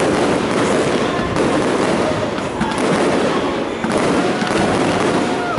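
Aerial fireworks bursting, a dense crackling broken by several sharp bangs, with a few short whistles near the end.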